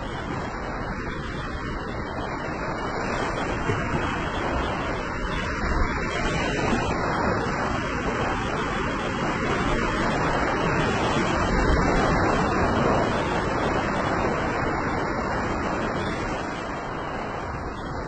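Small sea waves breaking and washing up a sandy beach: a steady surf hiss that swells to its loudest about twelve seconds in, then eases.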